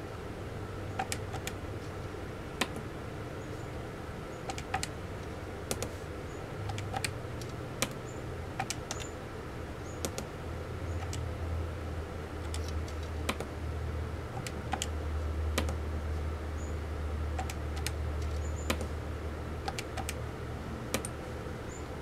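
Matrix keypad buttons pressed one after another, a few clicks a second at an irregular pace, keying in hex ASCII codes that spell out text character by character. A low steady hum runs underneath.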